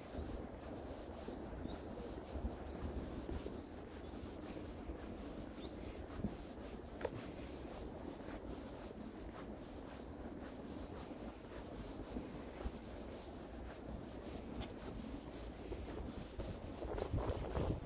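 Wind buffeting the microphone outdoors, a steady low rumble over a noisy hiss with faint scattered ticks, growing louder near the end.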